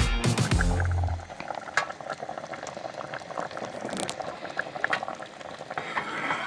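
Music ending about a second in, then steady bubbling liquid with scattered small crackles and clicks.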